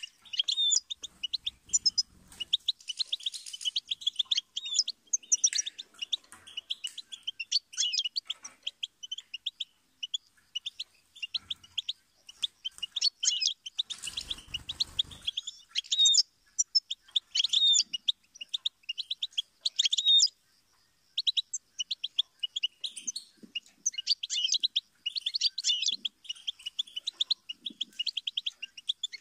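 European goldfinch singing: a fast, nearly unbroken run of high twittering and trilled notes, with a short pause about two-thirds of the way through. A brief burst of noise comes about halfway.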